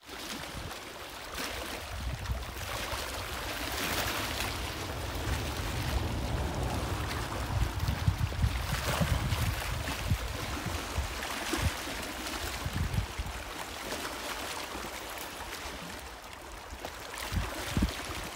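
Small waves washing and breaking on a rocky shore, rising and falling in slow swells, with wind rumbling on the microphone.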